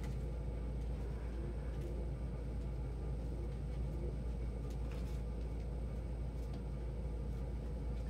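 A steady low rumble, even throughout, with a few faint ticks.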